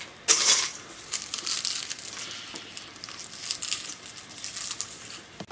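Crinkling and rustling of a popcorn bag being handled: one louder rustle about half a second in, then a run of small crackles.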